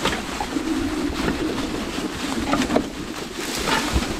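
Outrider Coyote electric 4WD ATV moving off-trail through the woods: a steady low hum from its drive, with scattered sharp cracks and snaps of sticks and leaf litter under the tyres.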